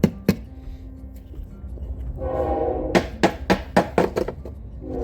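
Sharp knocks and taps as a sand mold is broken away from a freshly poured, still-hot metal casting: two near the start, then a quick run of about six past the middle. A held, steady tone sounds beneath them for a moment.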